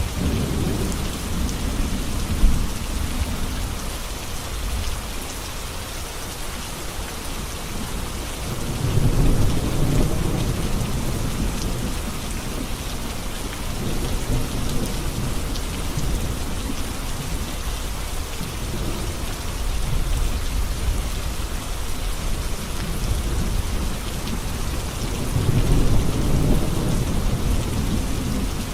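Heavy rain falling steadily on a road as a dense, even hiss. A low rumble swells up about nine seconds in and again near the end.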